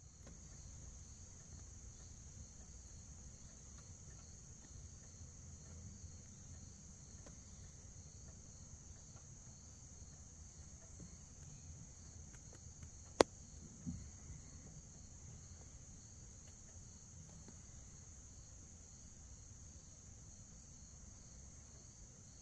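Faint, steady high-pitched trilling of crickets in an outdoor insect chorus, over a low rumble. A single sharp click comes about 13 seconds in, followed shortly by a soft low thump.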